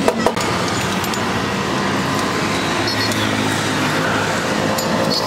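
Steady street traffic noise, with a few sharp knocks right at the start.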